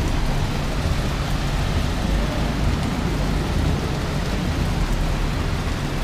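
Heavy rain falling steadily, an even hiss with a low rumble underneath.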